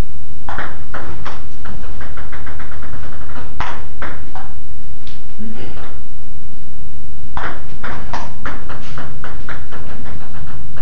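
Table tennis ball clicking off the bats and table during play, with a rapid run of ticks about two to three seconds in and a fast exchange of hits in the last few seconds.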